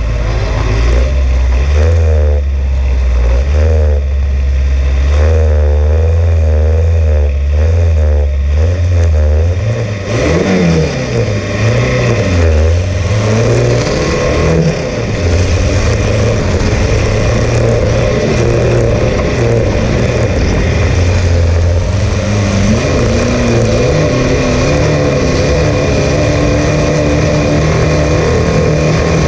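Sand rail engine running low and steady, then about ten seconds in the revs swing sharply up and down as it launches, and it runs hard at high revs under load climbing a sand dune.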